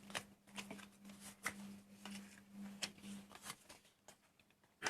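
Tarot cards being handled and shuffled: a string of irregular soft clicks and slaps.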